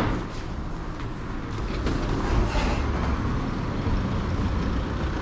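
A sharp click right at the start, then a steady low rumble of outdoor road noise.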